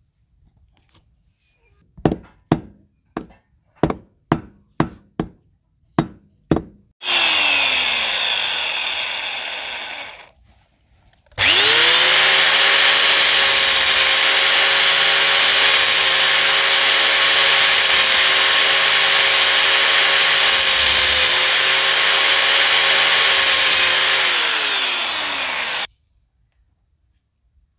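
About ten sharp knocks, roughly two a second. Then an angle grinder with an abrasive disc runs briefly and spins down, and after a short gap runs again for about fourteen seconds of steady grinding at a tractor's front wheel hub nut, with a high whine over the grinding noise. It winds down slightly and stops near the end.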